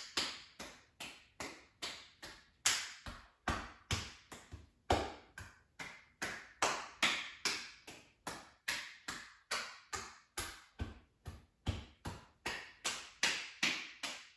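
A cupped hand patting along the arm, chest and shoulder as tapping self-massage. The pats come in a steady run, a little over two a second.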